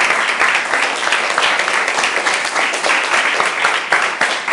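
Applause: a group of people clapping their hands steadily.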